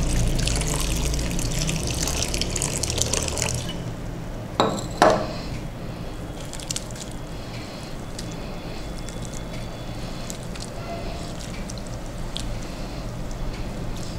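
Water poured from a plastic jug into a bowl of grated potato for the first few seconds, then two knocks about four and a half seconds in as the jug is set down. After that comes soft sloshing as a hand swishes the grated potato in the water to rinse out its starch.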